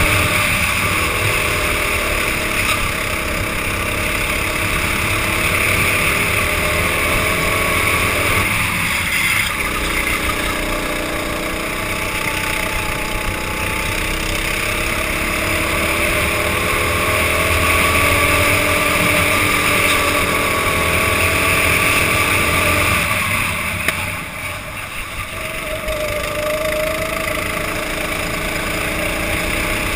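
Go-kart engine at race pace, heard through a helmet camera. Its pitch rises and falls lap-wise, dropping back briefly about nine seconds in and again near the end before climbing once more.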